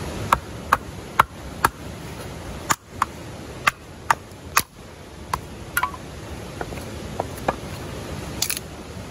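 Small hatchet knocking into a thin stick of kindling stood on a stack of wood blocks to split it: sharp wooden knocks about twice a second, then lighter, sparser taps.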